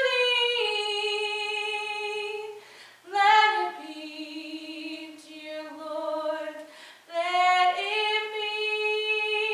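A woman singing a hymn solo and unaccompanied, holding long notes, with brief breaths between phrases about three and seven seconds in.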